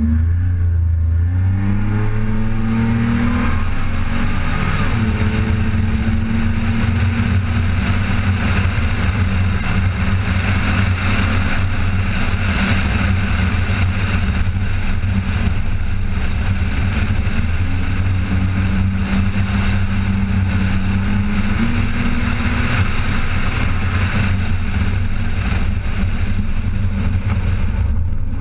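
Supercharged 3.8-litre V6 of a 2001 Pontiac Bonneville SSEi launching hard, its pitch climbing over the first few seconds, then running at high revs with small shifts in pitch. Wind and road noise on the outside-mounted camera are heard under it.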